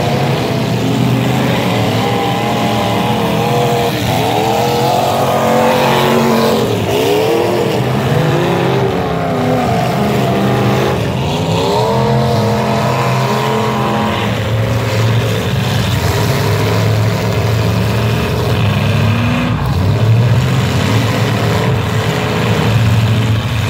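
Several demolition derby cars' engines revving hard at once, pitch rising and falling over and over as they rip around the arena.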